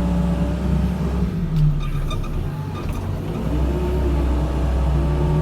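Backhoe loader's diesel engine running under work, its note dropping and easing off about a second and a half in, with a few light knocks, then picking back up and steadying near the end.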